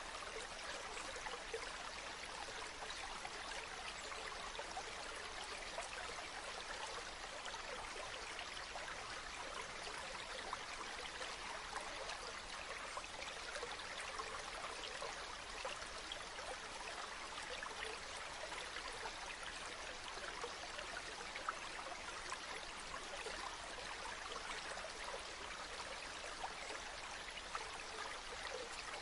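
Water flowing steadily in a small stream, a continuous babbling and trickling with no break.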